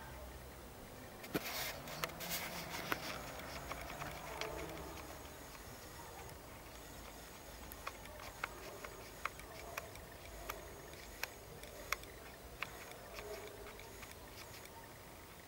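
Faint outdoor night ambience: a thin, high, steady trill of crickets in broken stretches, with scattered sharp clicks and a brief burst of rustling about a second in.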